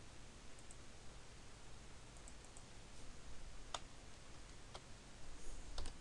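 Scattered single clicks from a computer mouse and keyboard as a value is edited in a software field, over a faint low hum.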